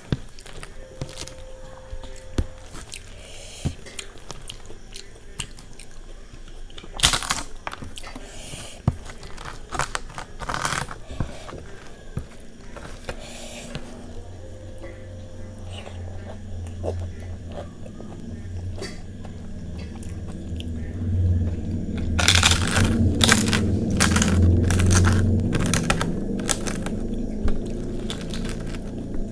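Close-up eating sounds: fingers mixing soft khichuri on a steel plate, chewing, and sharp crunches of crisp fried papad, heaviest in a run of crunches in the last third. A low steady hum comes in about halfway through.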